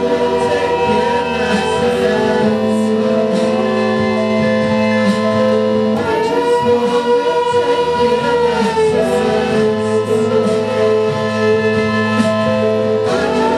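Live band music played through a club PA: long sustained keyboard chords that change about six seconds in and again near the end, with lighter melodic lines over them.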